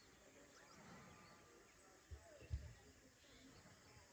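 Near silence, with faint background noise and two brief low thumps a little after two seconds in, the second louder.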